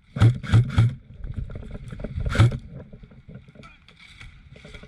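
Short, loud thumps, three close together in the first second and one more about two and a half seconds in, with faint scattered clicks between them.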